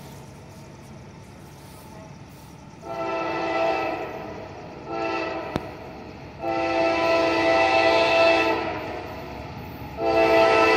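CSX freight locomotive's multi-chime air horn blowing four blasts (long, short, long, then a long one still sounding at the end), over the low rumble of the approaching train.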